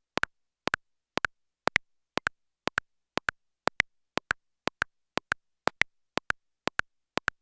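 Two metronome clicks sounding together at about two beats a second: Ableton Live's click and the CLOCKstep:MULTI clock's click audio returned through the DAW. Each beat comes as a pair of clicks slightly apart, a flam caused by the round-trip latency, with a brighter accented pair every fourth beat.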